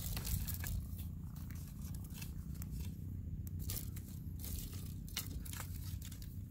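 Dry twigs and sticks clicking and crackling as they are laid over smouldering embers to start a campfire, with a steady low rumble of wind on the microphone underneath.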